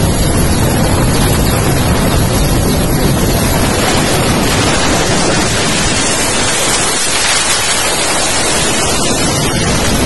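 Loud, steady rushing noise of wind buffeting the microphone while filming from the air, with no voices. The deep rumble thins out about four seconds in and the hiss turns brighter.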